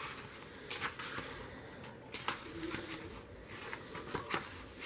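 Paper pages of a bound planner being turned by hand: several short, soft rustles and flicks about a second apart.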